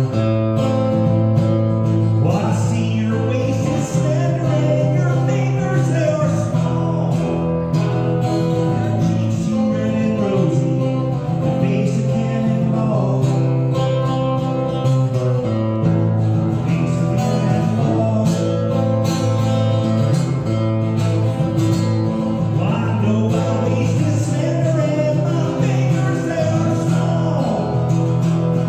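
A man singing while playing an acoustic guitar, with chords held for several seconds at a time.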